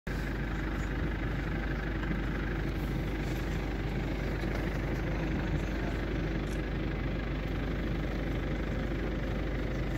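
A safari vehicle's engine idling steadily.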